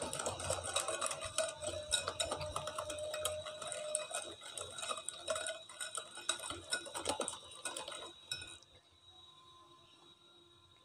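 A wire whisk is beaten by hand through thick creamed batter in a glass bowl, making rapid scraping clicks of wire against glass. The whisking stops about eight and a half seconds in.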